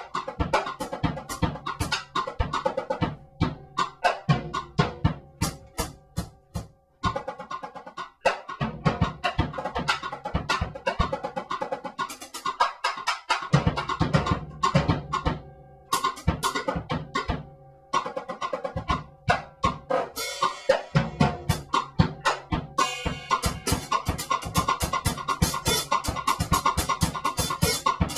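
Solo drum kit improvising: loose patterns of drum and cymbal hits broken by short pauses, with the snare damped by a cloth laid on its head. In the last few seconds the playing settles into a steady, fast groove with dense cymbal strokes.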